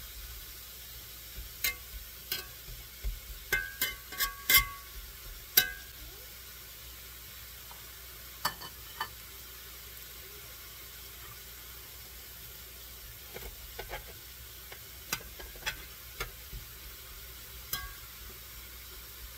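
Diced onions and roasted chilies frying in butter and oil in a cast iron skillet: a steady sizzle. Sharp clinks and scrapes of a metal spatula against the pan come in scattered strokes, clustered in the first few seconds and again in the second half.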